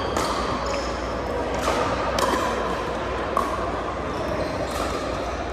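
Pickleball rally: a hollow plastic ball struck by paddles and bouncing, about five sharp pocks a second or so apart, each ringing briefly in a large gym hall.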